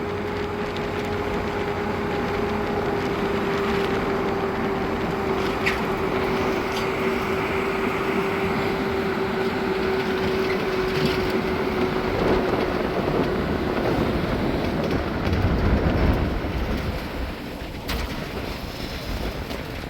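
Steady mechanical drone over a rushing noise, with a held hum that sinks slowly in pitch and fades out about two thirds of the way through; a couple of sharp clicks and a brief louder low rumble near the end.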